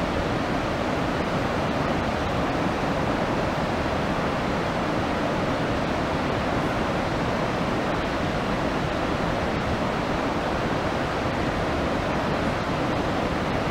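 Iguazu Falls: a large waterfall's water pouring down in a steady, even rush.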